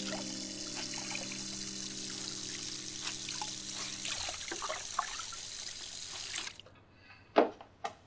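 Water running from a bathroom sink tap into the basin, stopping about six and a half seconds in. Two short knocks follow, the first one loud.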